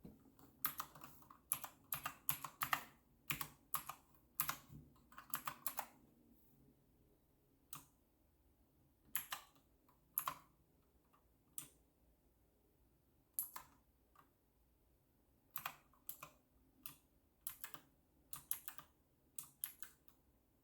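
Keys of an RK Royal Kludge typewriter-style mechanical keyboard with clicky switches being pressed: a fast run of keystrokes for about the first six seconds, then single presses and short clusters of two or three spaced a second or more apart.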